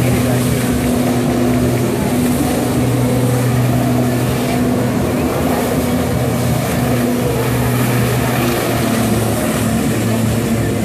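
Personal watercraft engine running hard to drive a flyboard's water jets through its hose, with the hiss of water spray; the engine's note shifts slightly up and down as the throttle changes.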